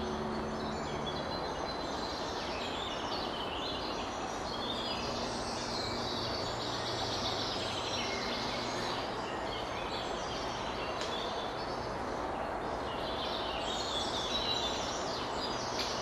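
Woodland birdsong: several small songbirds chirping and singing over a steady background hiss and faint low hum.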